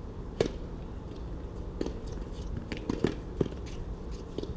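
Tennis ball struck by rackets and bouncing on the court during a rally: a series of sharp pops roughly a second apart, the loudest about half a second in and about three seconds in, over a steady background hum.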